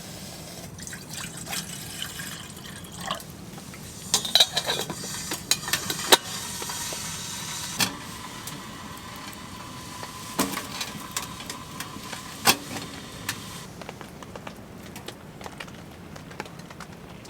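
Hot water poured into a mug for a hot chocolate: a steady pour of several seconds that stops about fourteen seconds in, with clinks and knocks of the mug and utensils around it.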